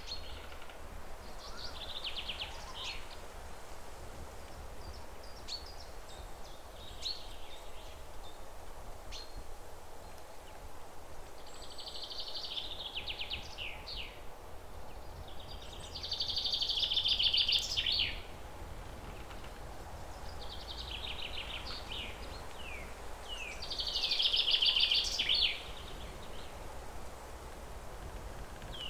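Songbirds singing in a forest, repeated high trilling phrases a couple of seconds long, ending in quick falling notes. Two phrases, about halfway through and near the end, are louder. A steady low background hum runs underneath.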